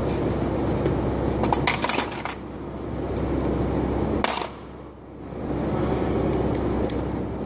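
Metal clinking, a quick cluster of clinks about a second and a half in and one sharper clink a little past four seconds, over a steady background hum.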